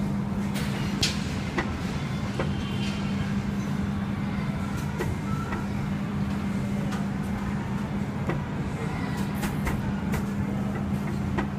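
Meat cleaver chopping chicken on a thick chopping board: sharp knocks at irregular intervals, several in quick succession near the end, over a steady low hum.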